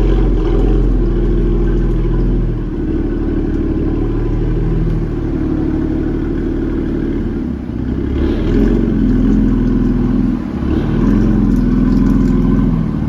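BMW F80 M3's twin-turbo straight-six running through an M Performance exhaust with the secondary cat deleted, the engine note rising and falling with the revs.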